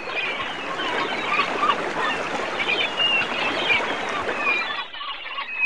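A dense chorus of many birds chirping and calling at once over a steady hiss. It cuts off about five seconds in.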